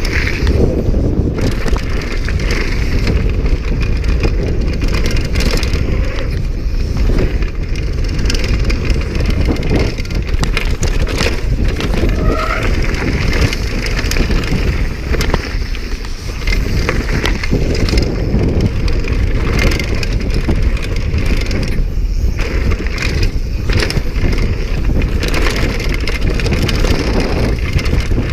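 Downhill mountain bike rattling and clattering over a rough, bumpy dirt trail at speed, with rapid knocks from the frame and wheels and tyre noise throughout, and wind on the microphone.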